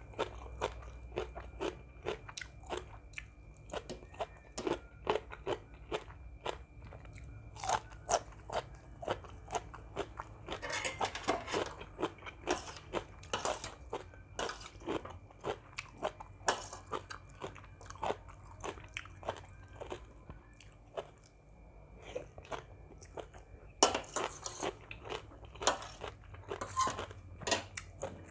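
A person chewing crunchy food close to the microphone: crisp crunches about twice a second, with a denser stretch of crackling about eleven seconds in and another a few seconds before the end.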